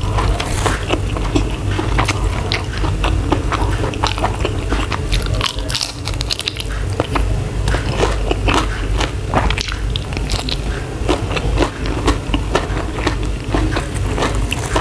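Close-miked chewing and biting of a mouthful of shrimp stir-fried with holy basil and rice, with many short irregular clicks and crunches.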